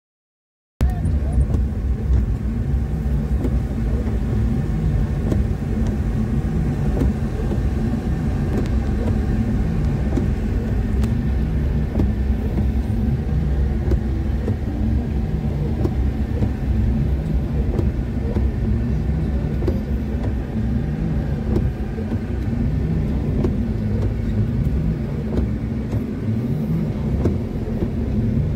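Inside a car's cabin while driving: a steady, loud low rumble of engine and road noise, starting suddenly about a second in after silence.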